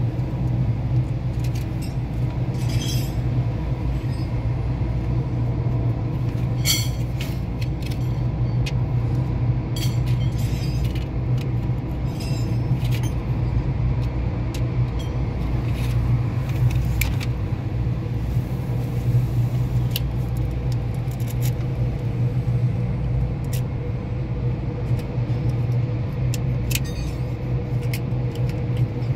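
A steady low machine drone, like a running engine, holds at an even level throughout, with a few light clicks scattered over it.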